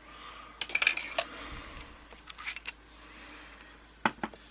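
Steel padlock parts clinking and clattering as they are handled and set down: a cluster of sharp metallic clicks about a second in, a few lighter ones midway and a couple more near the end.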